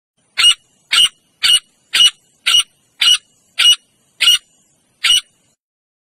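Male grey francolin (titar) calling: nine short, sharp, high notes repeated evenly, about two a second.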